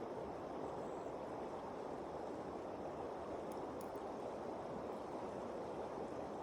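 Steady rush of river water flowing past.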